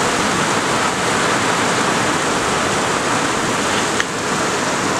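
Heavy thunderstorm downpour: rain pouring steadily and evenly, with no hail.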